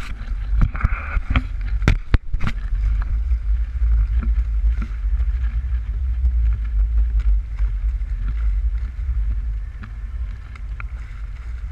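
Strong wind buffeting the microphone in a steady low rumble as a small boat moves through choppy water. Several sharp knocks in the first two and a half seconds come from the camera being handled.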